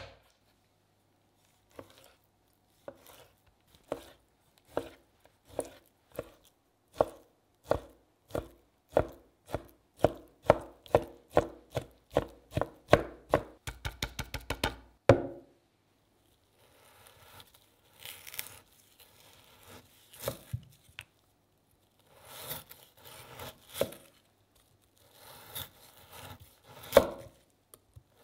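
A chef's knife chopping raw steak on a plastic cutting board. The knocks start about once a second and speed up into rapid chopping, then stop about halfway through. After a short pause come softer, scratchy strokes in groups as the knife slices through a slab of cooked pork belly.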